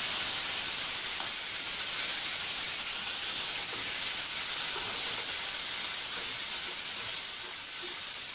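Green chillies and cumin seeds sizzling in hot oil in a stainless steel kadai as they are stirred with a wooden spatula: a steady frying hiss.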